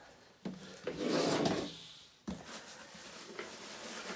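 A boxed figure set being opened by hand: a sliding scrape lasting about a second, then a sharp tap, followed by faint handling of the packaging.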